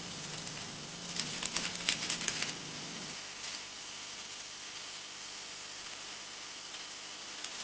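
A quick run of light kitchen clicks and taps, lasting about a second, over a steady hiss. A low hum stops about three seconds in.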